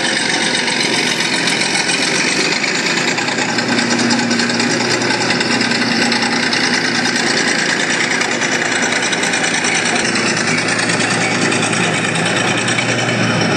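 Bulldozer engine running steadily with a fast, even clatter.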